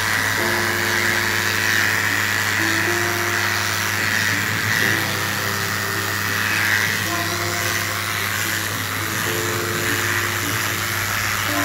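Corded electric dog clippers buzzing steadily as they shave through matted coat, with background music playing over them.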